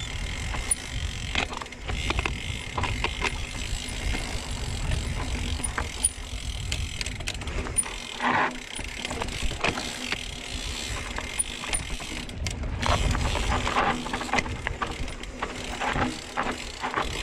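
Mountain bike moving over rough, rocky trail ground: the rear hub's freewheel ticking like a ratchet, mixed with rattles and knocks from the bike, over a steady low rumble.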